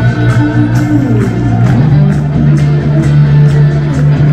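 Rock-style band music with strummed electric guitar and bass over a steady drum beat.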